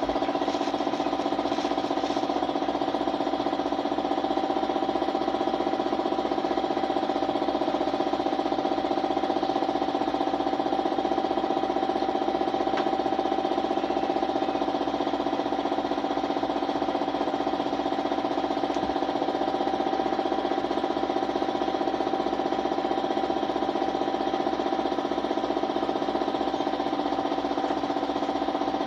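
Air compressor running steadily with a fast, even piston chatter and a constant hum.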